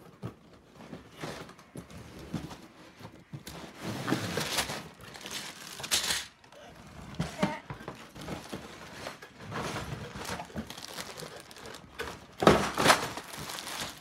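Cardboard toy box being opened: the lid and inner cardboard tray scraping and sliding, with plastic bags of parts crinkling. Irregular bursts of rustling, the loudest near the end.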